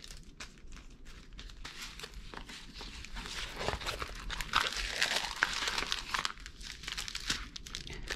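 Clear plastic film on a rolled diamond-painting canvas crinkling and crackling as it is handled and unrolled flat.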